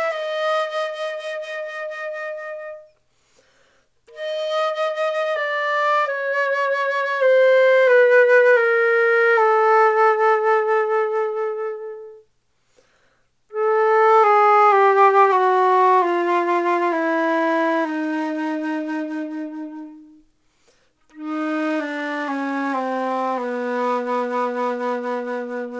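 Concert flute playing slow scales downward, note by note, into the low register, in four runs separated by three short pauses. It is a tone exercise: going down from a reference note while keeping the same even, focused sound quality on every note.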